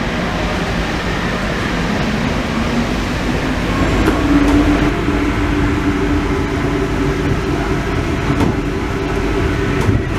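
A Paris Métro Line 1 rubber-tyred train running through a tunnel, heard from on board as a steady rumble. A motor hum grows stronger about four seconds in.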